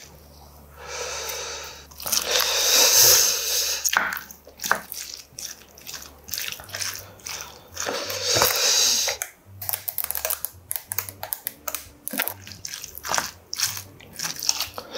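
A plastic packet of seaweed rustling in bursts over a rice bowl. Then, in the second half, a spoon clicks and scrapes quickly against a ceramic bowl as rice is mixed with kimchi stew.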